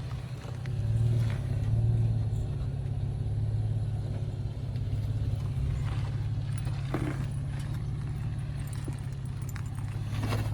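Off-road 4x4's engine running at a low, steady drone, with a swell of throttle about a second in and a couple of short knocks or clatters later.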